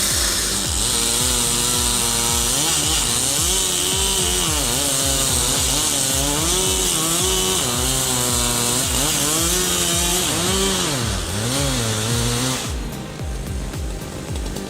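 Gas chainsaw running at high revs in a cut, its engine note rising and falling as it loads and unloads, then dropping away near the end. Background music with a steady beat underneath.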